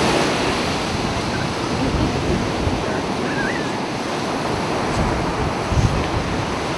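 Ocean surf breaking on the beach, a steady rushing wash, with wind buffeting the camcorder microphone in low gusts.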